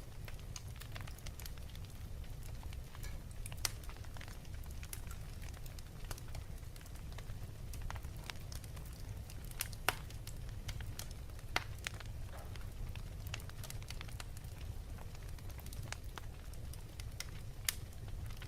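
Wood fire crackling in a fireplace: irregular sharp pops over a steady low rumble, with a few louder snaps.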